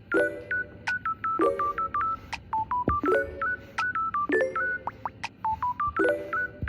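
Background music: a light melody of short, beep-like notes over a plucked chord that comes round about every second and a half.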